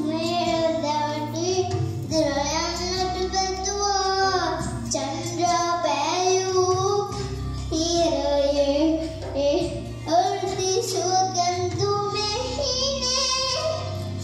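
A young girl singing a song into a handheld microphone, her voice gliding between held notes, over a steady instrumental backing track.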